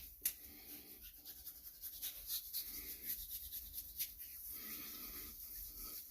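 Faint, irregular soft rubbing and swishing, with a small click about a quarter second in: hands working post-shave balm into a freshly shaved scalp.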